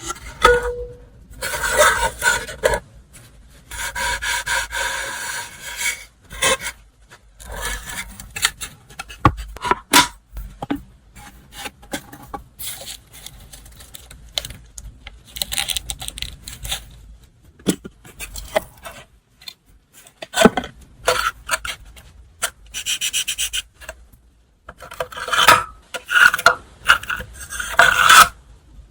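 Hands unwrapping and handling stationery gifts: paper and packaging rubbing and rustling in irregular bursts, with a few sharp taps.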